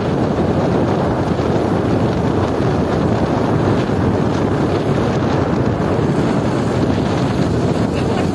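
Steady wind rush buffeting the microphone on a moving motorcycle, mixed with the motorcycle running along the road.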